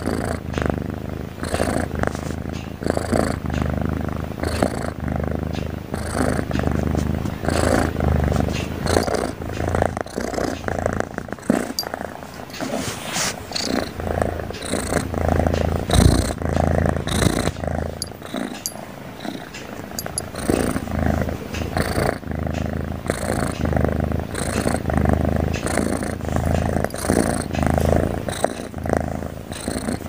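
Sleeping tabby kitten snoring noisily: a low, rhythmic rumble with each breath, about once a second.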